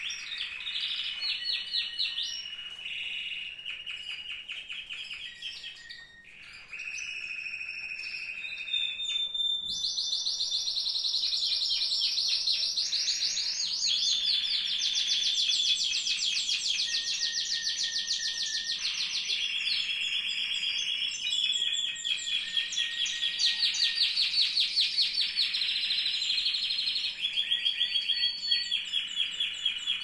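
Several Spanish timbrado canaries singing together: fast rolling trills and rapidly repeated notes, one strain running into the next and often two birds overlapping at different pitches, with a short lull about six seconds in.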